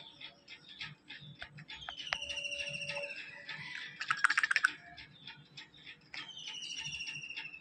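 Two falling, trilled bird calls, each lasting about a second, over a continuous run of rapid sharp ticking clicks. A short burst of loud, fast clicks about four seconds in is the loudest sound.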